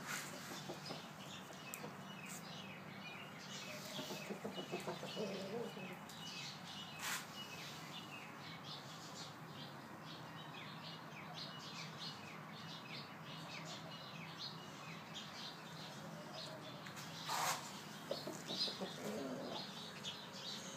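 Small birds chirping busily throughout, with low clucking from a chicken in bursts about four to six seconds in and again near the end. A few sharp knocks, the loudest about three-quarters of the way through.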